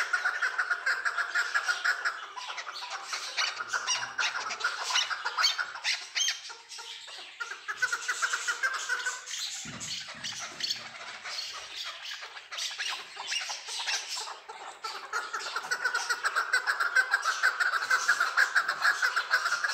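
Chukar partridges calling: a fast, continuous run of repeated chuk notes. The notes are loudest at the start and again over the last few seconds, and thinner in the middle.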